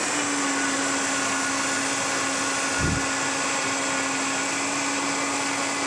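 High-speed countertop blender running steadily on a potato-and-carrot cheese sauce, its motor holding one even pitch. A brief low thump comes about halfway through.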